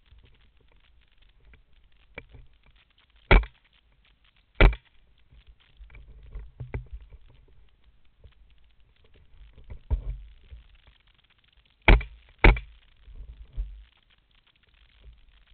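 Four shots from a Mossberg tactical .22 LR semi-automatic rifle: two sharp cracks about a second and a half apart, then two more about half a second apart later on. Lower thuds and rustle of movement lie between them.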